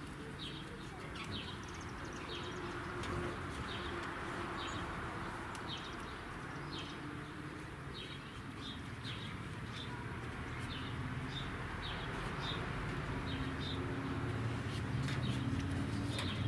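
A bird chirping repeatedly, short high chirps roughly once a second, over steady background noise.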